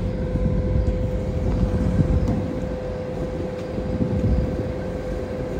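A ferry's engines and machinery running: a steady low rumble with a constant hum-like tone above it.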